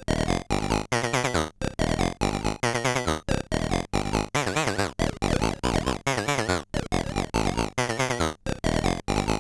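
Soulsby miniAtmegatron 8-bit synthesizer playing a fast run of short, separated notes whose tones wobble and sweep in pitch and timbre.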